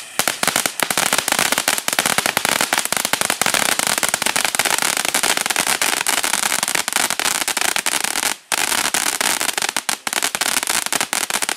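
13-inch conic firework fountain spraying silver sparks with red, green and blue crackling stars: a loud, dense crackle of countless rapid pops that starts abruptly, with a brief break about eight seconds in.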